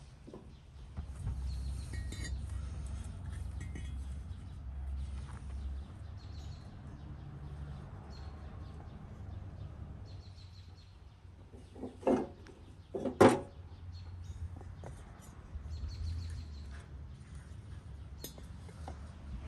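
Light clinks and knocks of utensils or cookware being handled, with two louder knocks about a second apart a little past the middle. A steady low rumble sits underneath, with faint bird chirps.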